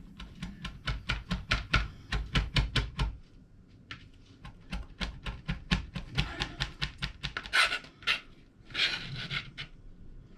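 Kitchen knife chopping quickly on a cutting board, about five chops a second, pausing briefly and then chopping again, with a couple of longer scraping sounds later on.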